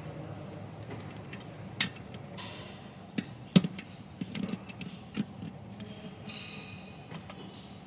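Metal hand tools clicking and clinking on the exposed valve train of a Mitsubishi 4N15 diesel, as a wrench works a rocker-arm adjuster locknut while a screwdriver holds the adjusting screw during valve clearance adjustment. A handful of sharp knocks come at irregular intervals, the loudest about three and a half seconds in, with a brief scraping sound about six seconds in.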